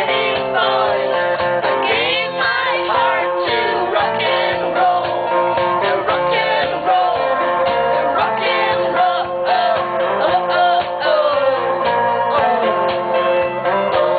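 Live band performance: a woman singing a rock and roll song into a microphone over a strummed guitar.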